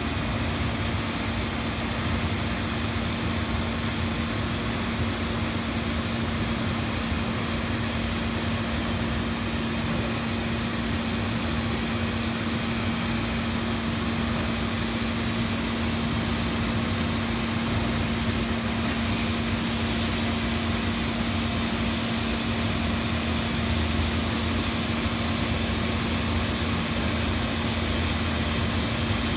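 Steady drone of running workshop machinery: a constant hum under an even hiss, unchanging throughout.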